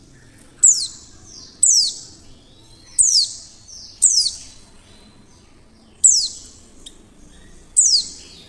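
Female white-eye (pleci) giving six short, sharp calls, each a quick falling sweep, spaced unevenly one to two seconds apart.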